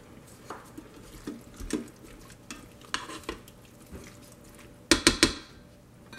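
Silicone spoon stirring wet sautéed mushrooms and spinach in a stainless steel Instant Pot inner pot: soft scrapes and squelches, then a quick run of louder knocks about five seconds in.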